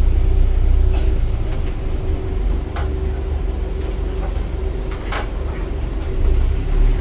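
Open-top double-decker sightseeing bus under way: a heavy low rumble with a steady whine, and a few short knocks or rattles.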